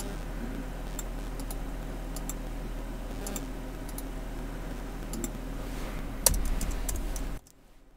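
Computer keyboard and mouse clicks: scattered light clicks over a steady low hum, with one louder click about six seconds in. Near the end the hum cuts out to near silence.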